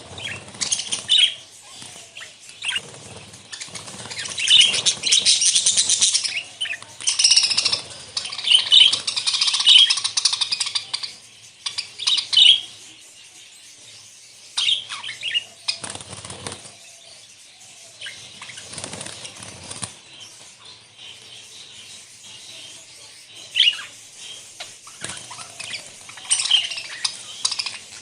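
A flock of budgerigars chattering and chirping, busiest in the first half and then in scattered bursts, with wing flapping among the calls.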